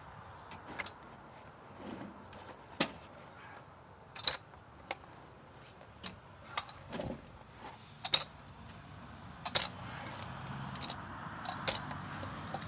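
Scattered sharp metallic clinks and taps, a dozen or so at uneven spacing, several with a short high ring.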